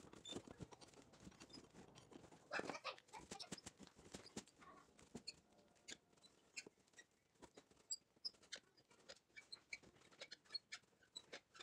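Near silence with faint, scattered metallic clicks and handling noise from hand work unthreading an outer tie rod end from the steering rack's inner tie rod, with a brief louder scrape about two and a half seconds in.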